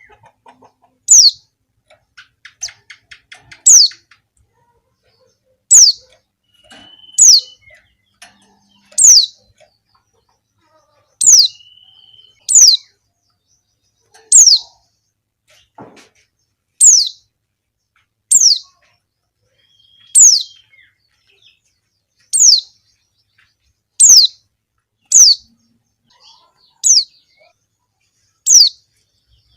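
Female white-eye (pleci) calling: short, sharp calls that slide down in pitch, repeated every second or two, about sixteen in all. This is the female's call to males, with a faint quick ticking run early on.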